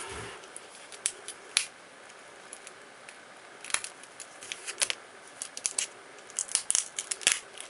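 Adhesive tape being peeled off the back of a laptop LCD panel as its video cable is worked free: scattered sharp crackles and ticks, coming thickest in the last couple of seconds.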